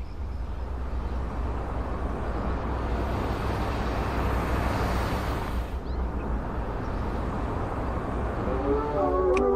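Steady low rumbling background noise with hiss over it, swelling slightly in the middle; music comes in near the end.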